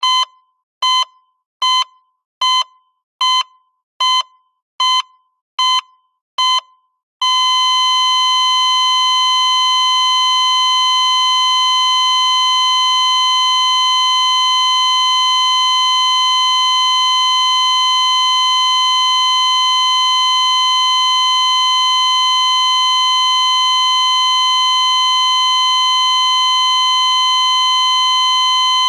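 Heart monitor sound effect: nine steady beeps a little under a second apart, then about seven seconds in the beeping gives way to one continuous flatline tone at the same pitch, the sign of the heart stopping.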